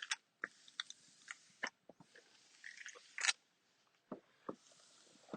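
Faint crinkling and scraping as a squeegee is swept across a vinyl wall decal and its paper backing is pulled down: short, irregular scrapes and crackles.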